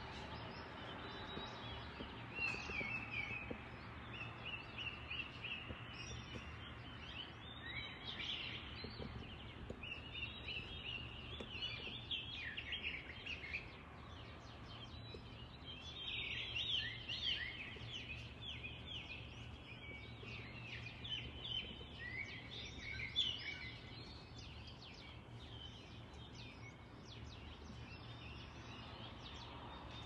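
Songbirds singing in a morning dawn chorus: several birds giving short, repeated high chirping phrases, busiest in the middle stretch and thinning toward the end, over a steady low hum.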